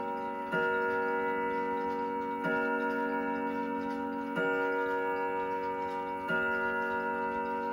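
Howard Miller Jennison triple chime wall clock striking the hour on its chime rods at twelve o'clock: one deep ringing stroke about every two seconds, four in all, each ringing on into the next, over the ticking of the pendulum.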